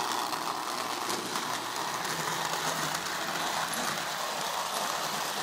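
Marx 333 toy steam locomotive running on model railroad track: a steady mechanical whir of its electric motor and wheels rolling on the rails.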